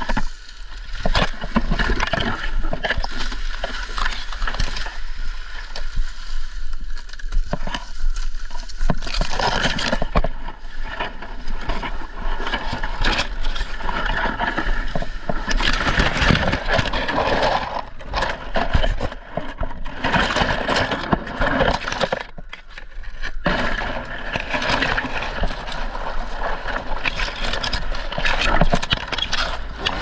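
Dry, dead Mexican fan palm fronds and leaf bases crackling, snapping and scraping as they are cut and pulled away from the trunk, in a dense run of irregular crackles.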